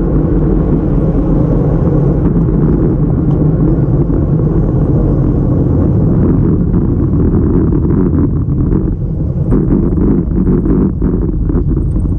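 Wind rumbling over the microphone of a bike-mounted camera, with tyre noise on asphalt, while a road bike is ridden at speed. From about halfway through, a scatter of short clicks and knocks comes in over the rumble.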